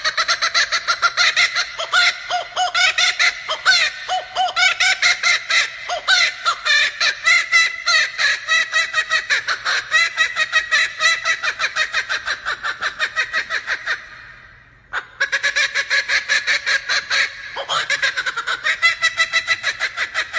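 Male laughing kookaburra giving its full laughing call: a long, loud run of rapid cackling notes. It breaks off briefly about two thirds of the way through, then starts up again.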